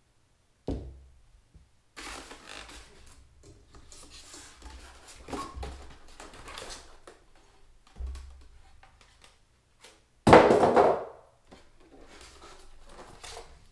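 Foam packing blocks being handled and pulled off a stand mixer: a knock about a second in, then irregular rubbing and scraping of the foam, with the loudest scrape about ten seconds in as an end piece is pulled away.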